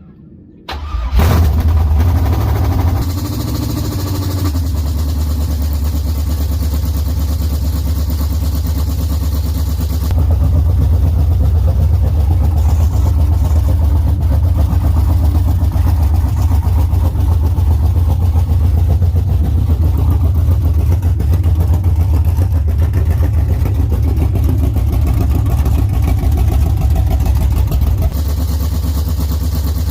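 LS V8 engine in a Camaro catching about a second in on its first start after a rebuild, then running at a steady idle with a deep, pulsing exhaust note. It gets a little louder about a third of the way through and eases slightly near the end.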